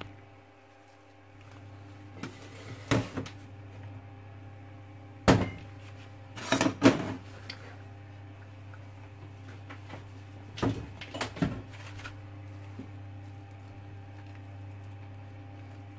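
Ceramic slow-cooker crock being lifted out of its metal base and set down on a stainless steel counter: a series of clunks and knocks in bursts about 3, 5, 7 and 11 seconds in, over a steady low hum.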